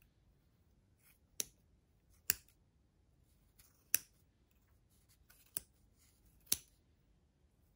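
Small, very sharp scissors snipping through the yarn loops of a pompom wound on a fork: about five crisp snips at uneven intervals, with a few fainter ones between.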